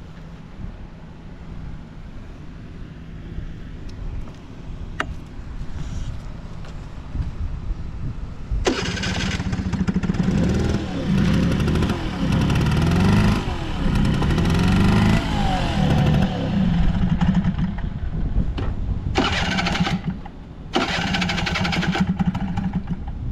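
Honda Squash (AB11) moped engine idling steadily, then about nine seconds in it is revved up and down several times, with two short blips of throttle near the end. The engine is running with no abnormal engine noise.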